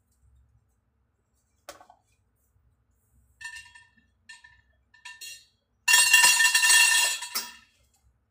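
Stainless-steel steamer parts being handled: a few light metallic clinks that ring briefly. About six seconds in comes a loud metal clatter of pot and tray knocking together, lasting about a second and a half.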